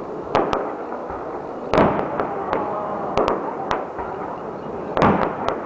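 Aerial firework shells bursting: a run of sharp bangs, loudest about two seconds in and again near the end, with smaller reports and crackle between them.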